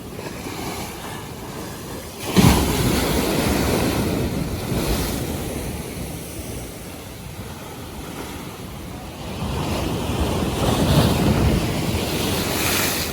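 North Sea waves surging and washing, one arriving suddenly about two seconds in and another building up near the end, with wind buffeting the microphone.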